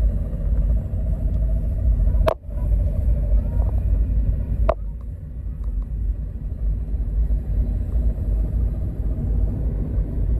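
Small engine of a homemade track sled running, under a heavy low rumble. There is a sharp click about two seconds in, with a brief drop in level after it, and another click about two and a half seconds later.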